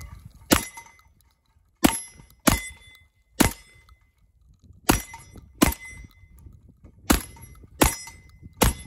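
ATI Bulldog 12-gauge semi-automatic bullpup shotgun firing nine shots in a rapid, uneven string, about one every second. Steel plate targets ring with a metallic clang after the hits.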